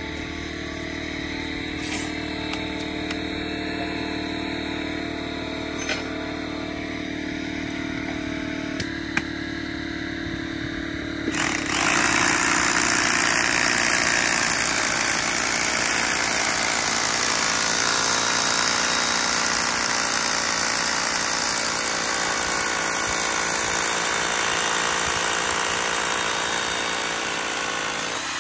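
A corded rotary hammer drill boring into the top of a concrete block wall, starting about eleven seconds in and running steadily as the loudest sound. Before it, a steady motor hum with a few sharp clicks.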